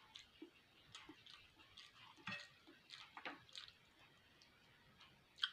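Faint, scattered mouth sounds of someone chewing beef fat: soft clicks and smacks at uneven intervals, with one sharper click near the end.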